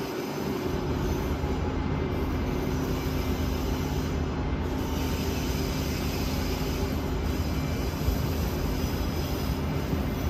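Renfe Rodalies double-deck electric multiple unit running slowly into the terminus: a steady rumble of wheels on rail with a low, even electrical hum from the traction equipment.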